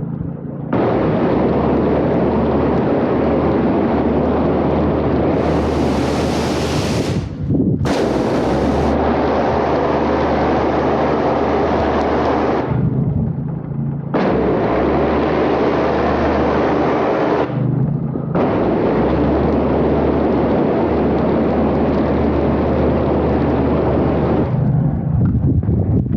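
Pressure washer spraying: a loud hiss of water jet that stops briefly three times as the trigger is let go, then cuts off near the end. The machine's engine runs steadily underneath throughout.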